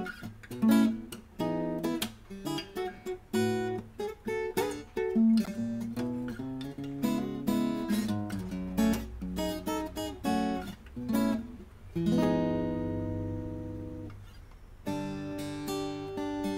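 Ruison GN90 cutaway acoustic guitar played fingerstyle: a plucked melody over bass notes. About twelve seconds in, a chord is struck and left to ring and fade for a few seconds before the picking starts again.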